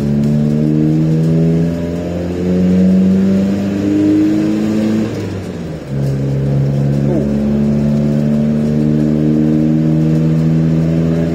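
Iveco Daily 35-8 van's diesel engine and custom-fabricated exhaust, heard from inside the cab while pulling under throttle. The drone climbs slowly in pitch, falls back once about halfway through at a gear change, then climbs again. It is quite loud at low revs with load on.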